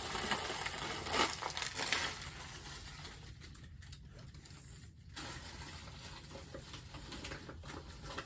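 Dry Cheerios cereal pattering and rustling as it is poured and handled, with a couple of sharp clicks in the first two seconds, then quieter rustling.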